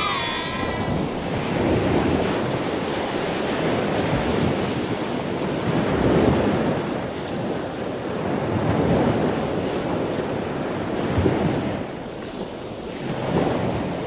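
Small waves washing onto a sandy shore, the surf rising and falling every three to four seconds, with wind buffeting the microphone.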